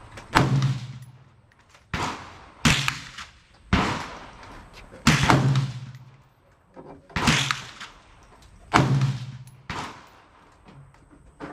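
Gunshots on a shooting range: about eight single shots at irregular intervals, each a sharp crack with a short echoing tail, three of them noticeably louder than the rest.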